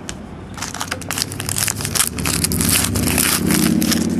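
A foil 2010 Panini Classics football card pack wrapper being torn open and crinkled, a dense run of sharp crackles and rustles. About halfway through, a low steady drone comes in underneath.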